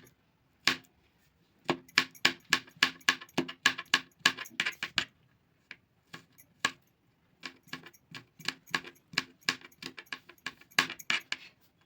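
Knife chopping garlic on a cutting surface: quick, sharp taps with a slight metallic ring, several a second, in two runs with a short lull in between.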